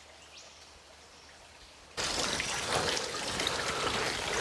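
Faint quiet forest air, then about two seconds in a sudden louder run of rattling, clicking footsteps on a metal-grated footbridge.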